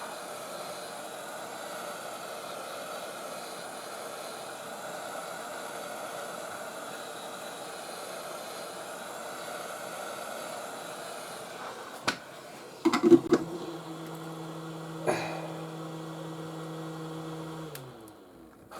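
Heat gun blowing hot air steadily to soften the adhesive under a cracked phone screen. About twelve seconds in there are a few clicks and knocks, then a steady lower hum that cuts off near the end.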